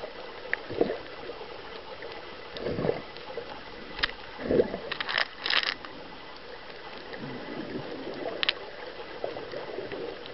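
Underwater recording: water moving and gurgling around the camera in several low swooshes, with a few sharp clicks and a short crackling cluster about five seconds in.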